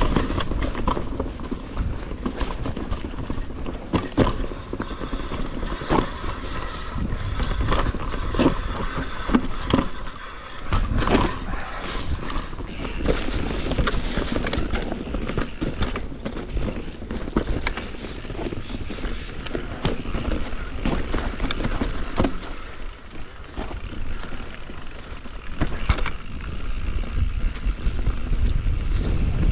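Mountain bike riding down a rough trail: tyres rumbling over dirt, with frequent knocks and rattles as the wheels strike roots and rocks.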